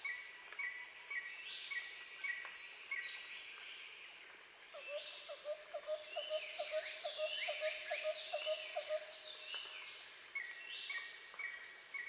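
Outdoor chorus of birds and insects: a steady high insect sound under repeated falling whistled calls and a short note repeating two or three times a second. From about five seconds in, a fast run of lower notes, about five a second, goes on for about four seconds.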